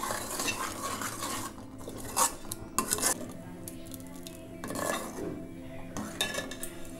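A spoon stirring a pot of kheer, scraping and clinking against the pot, with the sharpest clinks about two and three seconds in.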